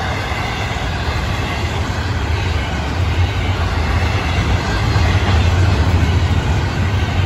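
Double-stack intermodal freight cars of a Florida East Coast Railway train rolling past: a steady rumble of steel wheels on rail, growing a little louder about five seconds in.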